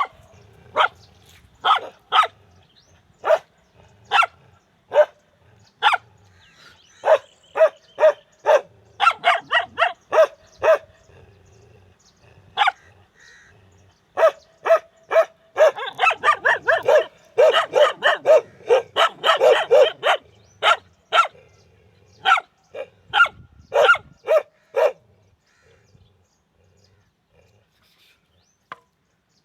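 Dogs barking: single barks about a second apart, then a dense run of rapid, overlapping barking a little past halfway, thinning out to a few last barks and stopping a few seconds before the end.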